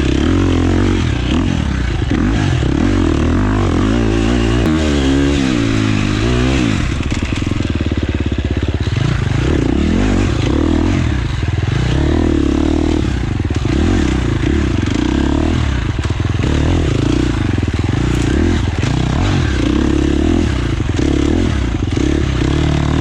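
Husqvarna FX 350 dirt bike's single-cylinder four-stroke engine being ridden hard, its pitch rising and falling over and over as the throttle is worked and the gears change.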